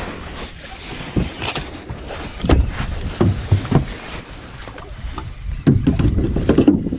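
Wind buffeting the microphone on a small fishing boat, with scattered irregular knocks and thumps; the rumble gets louder for about the last second.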